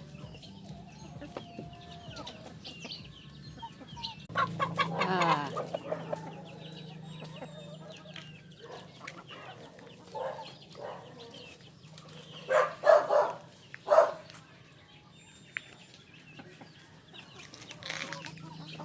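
Backyard chickens clucking and calling. A rooster gives one long crow about four seconds in, and there are louder squawking calls at about twelve and fourteen seconds.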